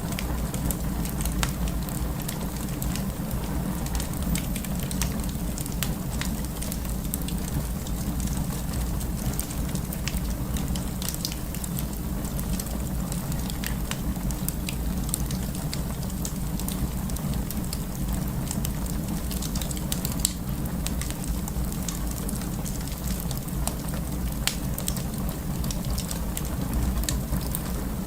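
Wood fire burning in a fireplace: a steady low rumble with many irregular sharp crackles and pops.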